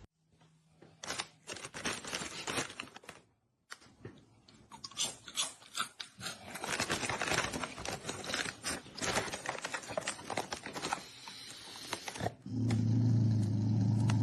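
Crunching and chewing: a run of short crackly clicks and scrapes, broken by a brief silence a little after three seconds. A steady low drone takes over for the last two seconds.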